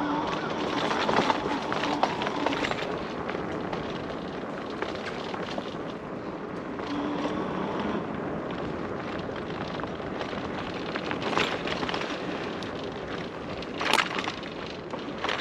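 Electric bike riding along a trail: a steady rush of tyre and wind noise, with a faint hum in the first few seconds and sharp knocks about eleven and fourteen seconds in.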